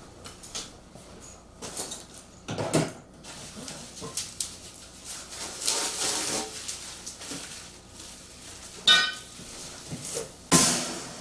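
Steel carrier parts and hardware clinking and knocking as they are handled, with a plastic parts bag rustling partway through. A sharp, ringing metal clink comes about nine seconds in, and the loudest knock just after ten seconds.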